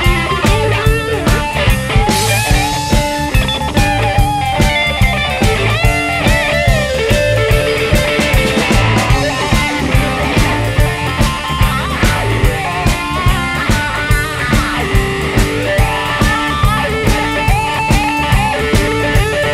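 Live blues-rock band playing an instrumental passage: a lead electric guitar with notes that bend in pitch, over a second electric guitar, bass guitar and a drum kit keeping a steady beat.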